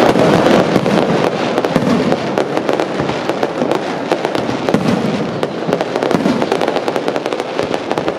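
Aerial fireworks shells bursting in a rapid, continuous string of bangs and crackles that overlap one another.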